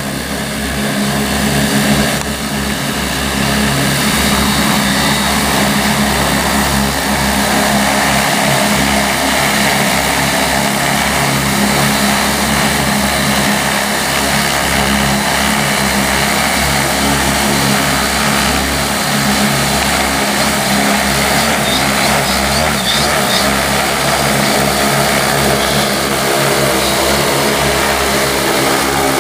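Large six-rotor crop-spraying drone with 75 cm propellers hovering, its rotors making a loud, steady drone that grows louder over the first few seconds.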